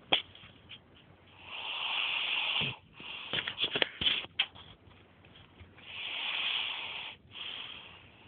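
Snoring: a few long, noisy breaths, with a run of short clicks between them about three to four seconds in.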